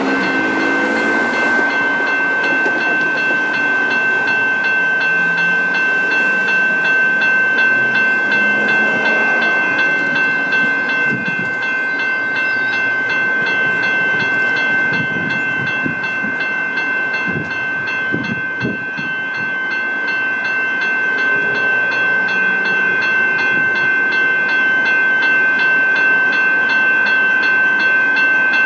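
Electronic level-crossing bells, a General Signals Type 3 and an adjusted Type 1, start up near the beginning and keep up a steady, high-pitched ringing: the warning that a train is approaching and the boom gates are down. Low knocks and rumble come in under the ringing midway.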